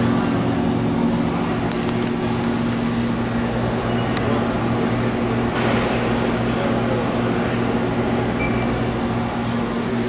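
A steady low electrical hum, with a brief rush of noise a little past halfway.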